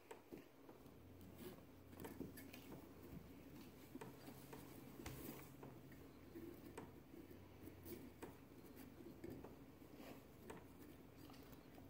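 Faint, scattered scratching and ticking of a kitten's claws and paws on a rope and a wooden floor as it plays with the rope.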